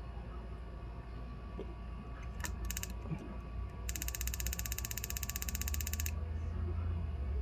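Jeweler's soldering torch that won't light: a few clicks, then about two seconds of rapid, even clicking, over a steady low rumble.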